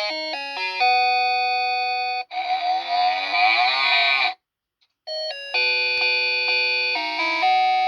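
Cow-mooing alarm clock tone: a chiming electronic melody, broken about two seconds in by a cow's moo lasting about two seconds. After a half-second gap the chiming melody starts again.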